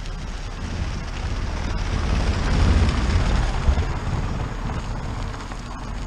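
A car passing close by on a dirt road, its engine and tyre noise swelling to a peak about three seconds in and then fading, with wind buffeting the microphone.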